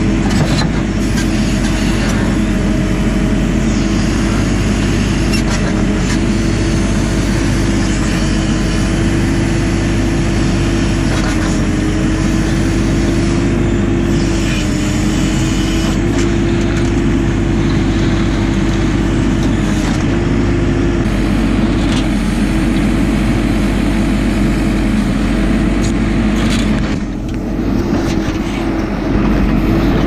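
JCB 4CX backhoe loader's diesel engine running steadily while the backhoe works, its steady drone wavering slightly in pitch. The level dips briefly near the end, then comes back.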